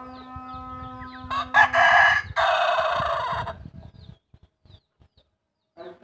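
A rooster crowing once, a loud call about two seconds long starting about a second in.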